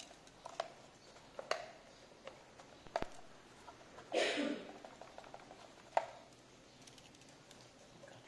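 Light handling of a cardboard box and plastic-wrapped packing: scattered soft taps and clicks, with one louder brief rustle about four seconds in.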